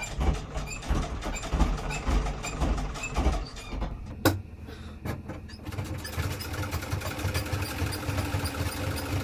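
Vintage Singer sewing machine stitching through cotton fabric, the needle mechanism clicking in a rhythm. It runs slower and unevenly at first, with a single sharp click about four seconds in, then sews faster and more evenly.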